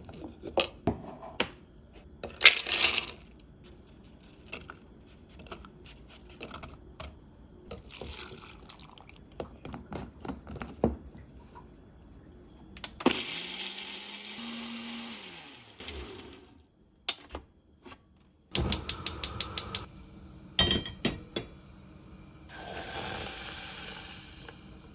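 Kitchen prep sounds with clicks and knocks. About halfway through, a Ninja countertop blender runs for about three seconds: its motor spins up to a steady whir, then winds down. A quick run of clicks follows.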